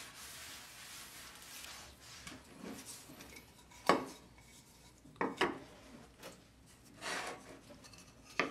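Paper rubbed over a wooden tabletop, a steady faint hiss, for the first couple of seconds. Then black-stained wooden lamp-kit discs are handled and set down on the table: a knock about four seconds in, the loudest, a quick pair of knocks a second later, and more knocks near the end.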